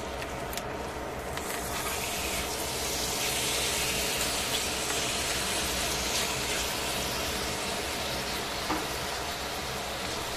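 Raw marinated chicken pieces sizzling in a stainless steel frying pan, the sizzle building up over the first few seconds as the meat goes into the hot pan and then holding steady.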